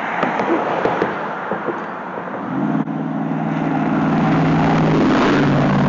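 A motor vehicle's engine comes in about two and a half seconds in, grows louder and then runs steadily with a constant hum, over a background of road-like noise.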